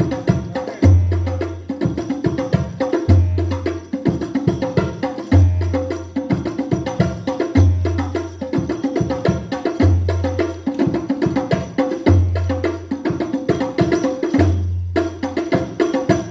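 Hadrah frame-drum percussion playing a fast, steady pattern of dense strokes, with a deep bass-drum stroke about every two seconds. The sound breaks off briefly near the end.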